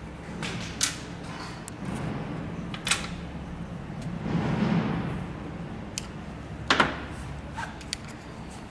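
Small metal parts and measuring tools being handled at a workbench: a few sharp metallic clicks and knocks, the loudest near the end, and a rustle in the middle, over a steady low hum.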